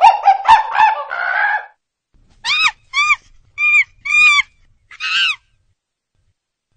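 Bird honking calls: a quick run of calls, then five separate calls, after which the sound cuts off.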